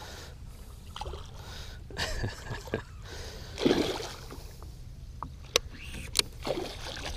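A hooked northern pike thrashing and splashing at the water's surface beside the boat, with the loudest splash about four seconds in. Two sharp clicks come near the end.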